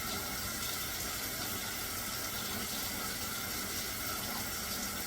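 Water running steadily from a kitchen tap into a gallon jar of sliced cucumbers, filling it with hot water for the pickle brine.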